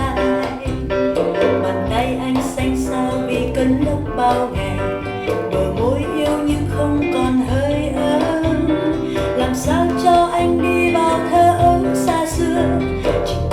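A Vietnamese song played from a vinyl record: guitar and bass with a singing voice.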